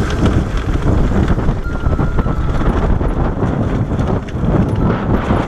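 KTM 690 Enduro motorcycle riding down a rough, rocky trail: a dense run of knocks and rattles as the tyres and bike jolt over rocks, with wind buffeting the microphone.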